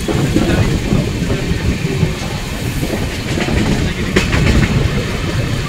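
An express passenger train running at speed, heard from on board: a steady low rumble with the wheels clattering over rail joints. There is a sharp clank about four seconds in.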